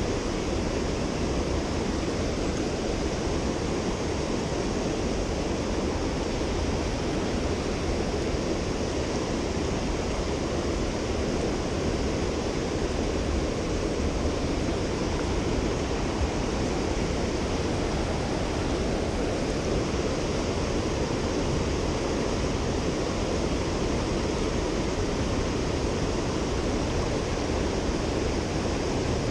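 Mountain river rushing: a steady, unbroken noise of fast-flowing water.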